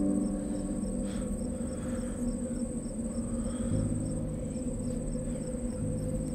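Crickets trilling steadily, a continuous high-pitched chorus, over low sustained droning tones that change notes a couple of times.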